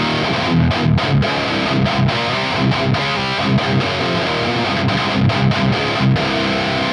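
Electric guitar played through a Laney GH100TI all-tube amp with heavy distortion: a riff in drop C tuning with chugging low notes broken by short stops. The tone is very congested in the low mids.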